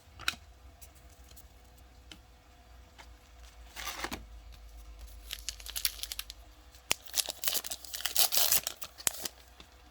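Trading-card pack wrapper being torn open and crinkled, in a few short bursts, with the longest and loudest stretch in the second half.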